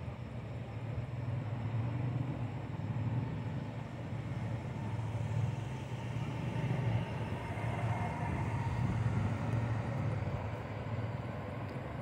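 Light wind buffeting the phone's microphone: a steady, uneven low rumble that swells and eases.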